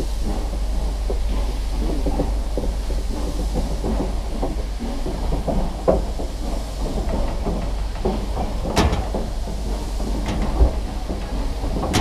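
Nilgiri Mountain Railway train running on its rack-railway track: a steady rumble with wheels clattering and knocking over the rails, and one sharper knock about nine seconds in.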